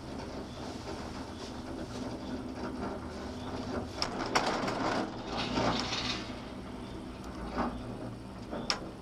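Ride inside a Poma eight-seat detachable gondola cabin (TCD8): a steady mechanical hum with scattered clicks and knocks, and a louder rattling stretch about four to six seconds in.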